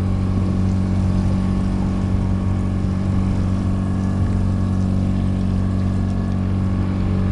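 Outboard boat motor running at a steady speed, a low, even drone with no change in pitch.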